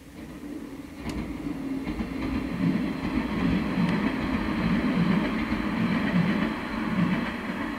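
A train passing on the San'yō Line, its rumble building over the first couple of seconds, staying loud, then easing off near the end.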